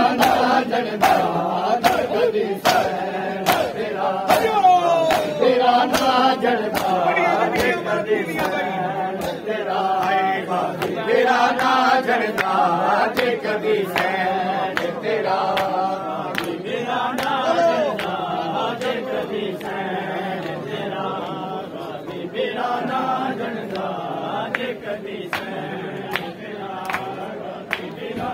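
Men chanting a Punjabi noha (mourning lament) together, punctuated by the rhythmic slaps of matam, hands beating bare chests in unison about one and a half times a second.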